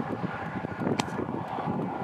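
Gusty wind buffeting the microphone in a steady rush, with a single sharp click about a second in.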